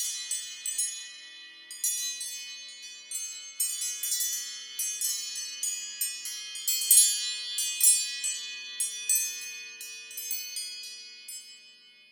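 An iPhone ringtone: a quick run of bright, high-pitched chime notes, each struck and ringing on as it fades, forming a tinkling melody that dies away near the end.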